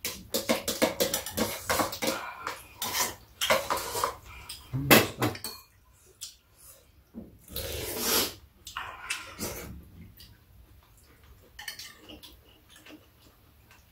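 Metal spoons and steel chopsticks clinking and scraping against ceramic bowls during a meal, in irregular taps, with longer louder stretches of noise about five and eight seconds in.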